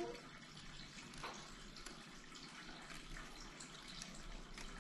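Faint rustling and light clicks of polystyrene-foam 3D puzzle pieces being handled and pressed out, a few soft ticks scattered through.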